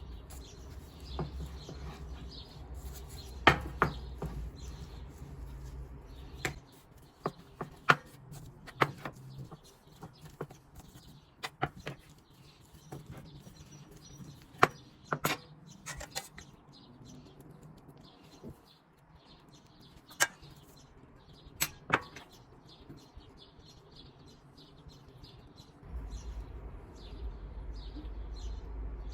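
Scattered sharp clicks and knocks of dough, trays and utensils being handled at a work surface, with small birds chirping faintly in the background.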